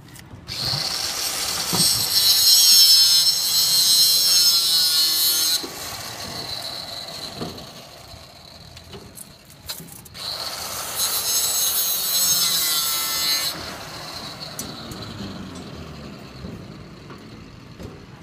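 A handheld power cutting tool makes two long cuts, the first about five seconds and the second about three, with a high-pitched whine. Between the cuts the tool runs on more quietly without load.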